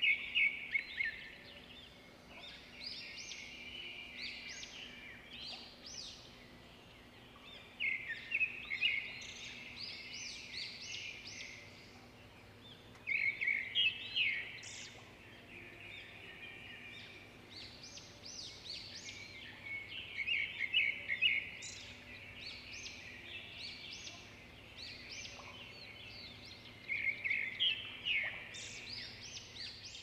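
Birds chirping in bursts of quick, high chirps that come back about every six to seven seconds, over a faint steady hum.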